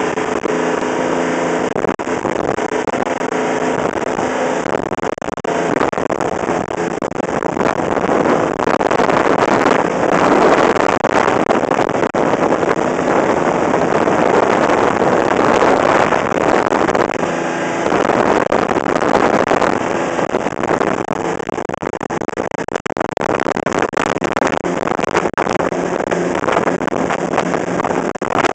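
Fast rescue boat's 200 bhp Volvo Penta engine driving its water jet, running under way with a steady rush of water and wind. The engine's hum is clear in the first couple of seconds, then the rushing grows louder from about 8 seconds in.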